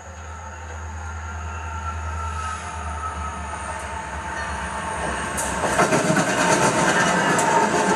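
Norfolk Southern freight train led by an EMD SD60M diesel locomotive approaching and passing close by, its rumble growing steadily louder, then loud wheel-on-rail noise as the locomotive goes past about five and a half seconds in.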